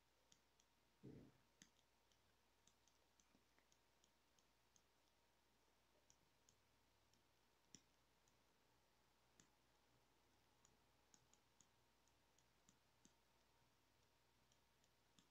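Near silence with faint, irregular clicks of a stylus tapping on a tablet's glass screen while handwriting, and a faint low thump about a second in.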